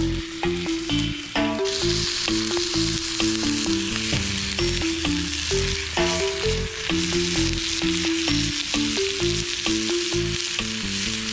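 Food sizzling as it fries over a wood fire, the sizzle swelling about two seconds in and holding steady, under background music.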